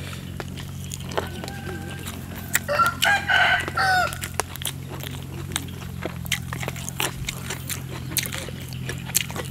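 A rooster crowing, a fainter call about a second in and a louder one around three to four seconds in, over small wet clicks of chewing.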